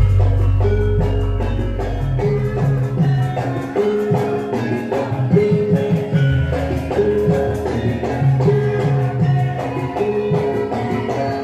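Music accompanying a Wonosobo lengger dance: a mallet-percussion melody repeats a short phrase over a steady drum beat.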